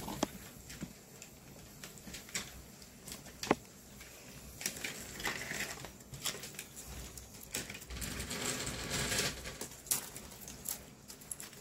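HO-scale model locomotives running along the track: a faint small-motor whirr with scattered clicks and rattles, a sharper click about three and a half seconds in, and a louder, noisier stretch around eight seconds in.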